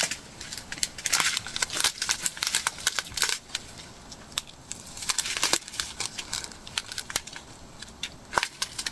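Plastic bags of diamond-painting drills being handled: irregular crinkling and crackling of thin plastic.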